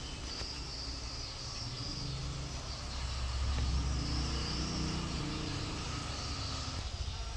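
Cosmos 16-WFGR wall fan running: a steady low motor hum with the rush of air from the blades, swelling a little about halfway through.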